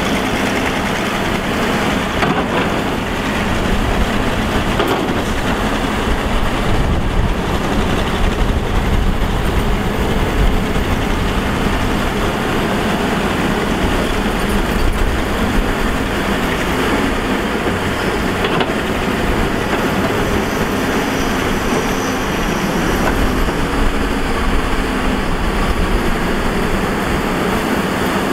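Matador ME315 crawler excavator's diesel engine running steadily under load while it digs dirt and swings loads toward a dump truck.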